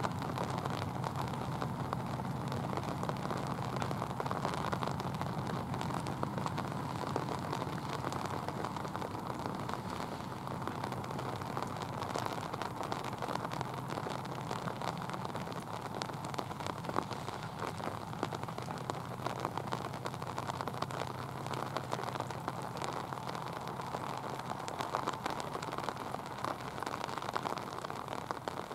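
Steady rain with many small drop ticks, over the low hum of a departing diesel locomotive that fades away over the first ten seconds or so.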